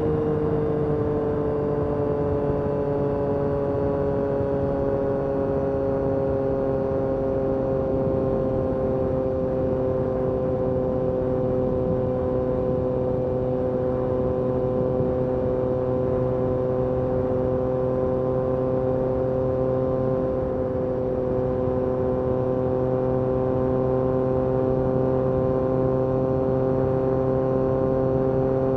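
Yamaha MT-09 SP's 890 cc three-cylinder engine running through an Akrapovic carbon racing exhaust at steady cruising revs. The pitch eases down a little in the first few seconds, then holds steady.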